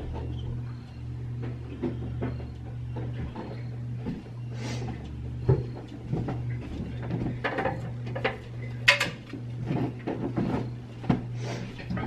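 Household handling noise in a kitchen: scattered knocks, clicks and clatter of things being moved, with a sharper knock about nine seconds in, over a steady low hum.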